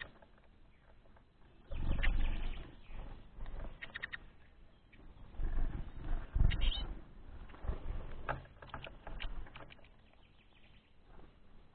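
Small songbirds giving brief, scattered chirps, over low rumbling bursts that are loudest about two seconds in and again around six and a half seconds in.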